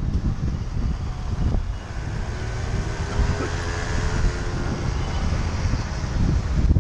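Wind buffeting a bicycle-mounted microphone over city street traffic, with the engine of a motor scooter riding close ahead.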